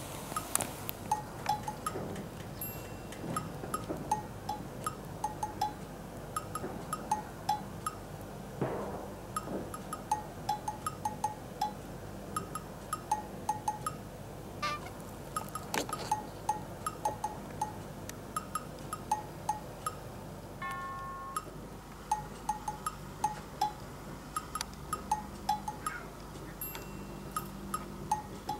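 Light, bouncy background music of short plinking bell-like notes, several a second.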